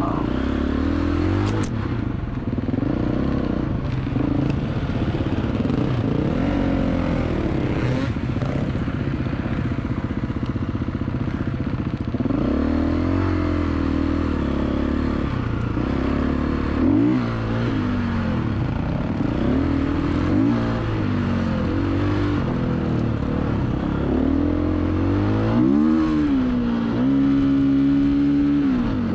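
Dirt bike engine running under way on an off-road trail, the revs rising and falling constantly with the throttle, with occasional knocks and rattles. Near the end the revs climb and hold steadier.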